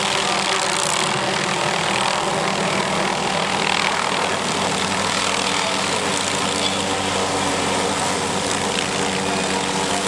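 MD 500 turbine helicopter running overhead while the aerial tree saw hanging beneath it spins its circular blades through treetops: a steady, even mechanical din with a constant hum.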